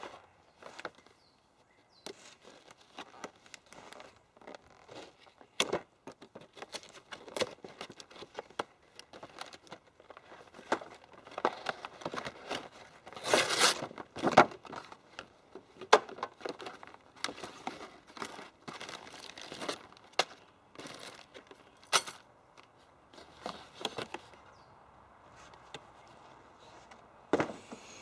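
Hands-on work fitting intercooler pipe elbows in a car's engine bay: irregular clicks, knocks and rustling as parts and tools are handled, with a longer, louder scraping stretch about halfway through.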